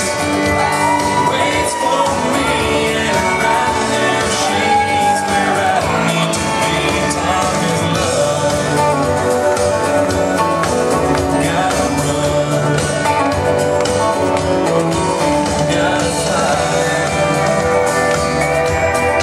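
Recorded song with singing over a backing band, played steadily through a hall's sound system for the dancers.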